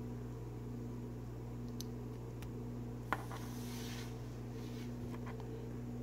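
Faint handling of a plastic SC fiber connector and adapter, with one small click about three seconds in and light rubbing after it, over a steady low hum.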